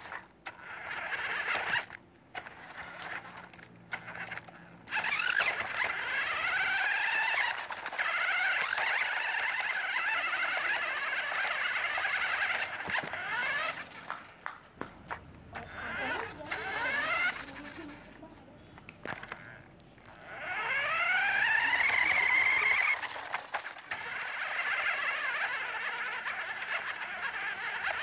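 Cheetah King 1:16 scale RC rock crawler's electric motor and gearbox whining, rising in pitch each time the car speeds up, about four times, with short stops in between.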